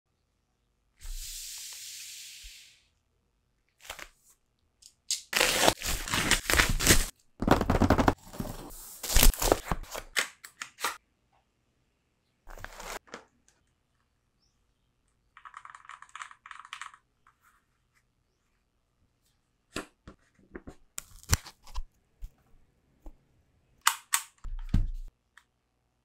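Mechanical keyboard being unboxed: a short hiss about a second in, then loud crinkling and tearing of the packaging for several seconds. A brief scraping sound and scattered clicks and knocks follow as the keyboard and box pieces are handled.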